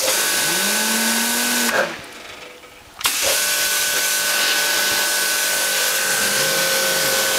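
Pressure washer spraying in two long bursts, its trigger let go for about a second between them: a steady hiss of the water jet with a constant pump whine. The jet is aimed at the range hood's fan to spin its motor.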